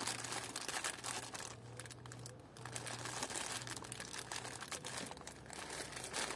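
Plastic crinkling and rustling, irregular crackles as a small wire connector and its packaging are handled, over a faint steady low hum.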